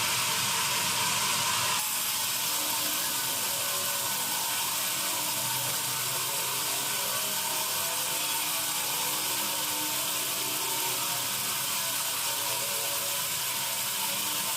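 Sawmill band saw running with a steady mechanical noise, dropping slightly in level about two seconds in.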